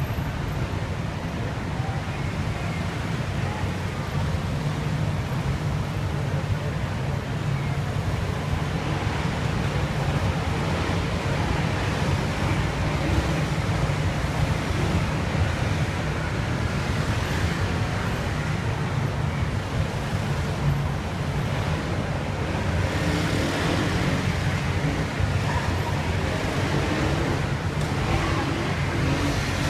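Motorcycles passing along a street, their engines running under a constant low rumble of traffic noise.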